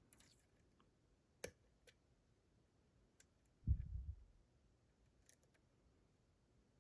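Faint, scattered clicks of a lock pick and tension wrench working the pins of a Dorma DC500 lock, with one soft, deeper thump a little past halfway.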